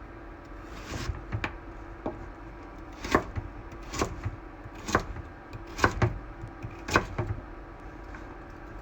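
Kitchen knife chopping on a cutting board in slow, single strokes, about one a second, over a steady low hum.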